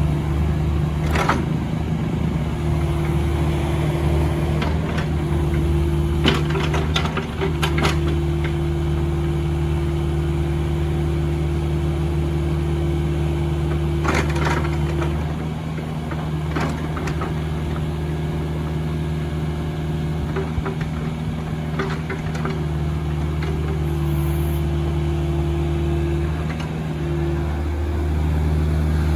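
Kubota U40-6 mini excavator's diesel engine running steadily while the boom and arm are worked through the hydraulics, the engine note shifting as the load comes and goes. A few sharp knocks from the machine's moving parts sound here and there.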